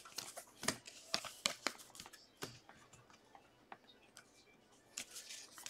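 Baseball trading cards being flicked through by hand and set down on a table: a scatter of soft clicks and snaps, coming thick in the first couple of seconds and then only now and then.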